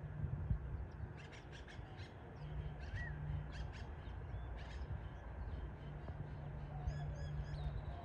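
Birds calling: a run of short, sharp calls with a few small chirps, a few more chirps near the end, over a steady low hum.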